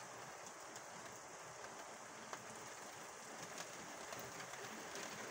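Steady rain falling, with a few light ticks of drops striking nearby.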